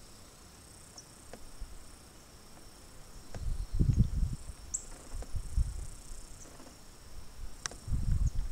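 Steady high-pitched chirring of insects, with a few faint clicks and low rumbles about three and a half seconds in and again near the end.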